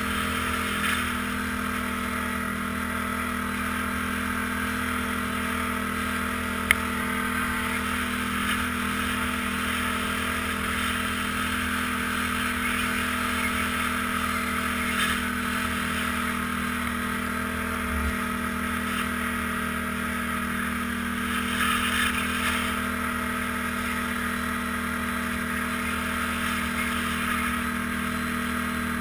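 ATV engine running steadily while riding, a continuous even drone. A single sharp click is heard about a quarter of the way in.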